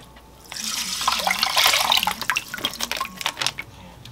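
Beef bone broth pouring from a pouch onto rice in a pot, a splashing pour from about half a second in to about two seconds. Then small splashes and drips as fingers move the rice about in the liquid.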